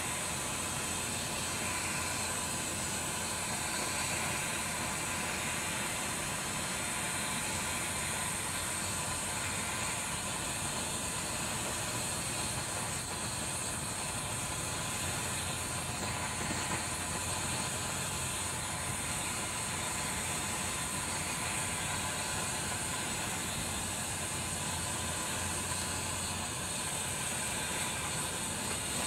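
Takei 501A kerosene pressure burner hissing steadily while it is being lit, its pressurised fuel burning as it warms up.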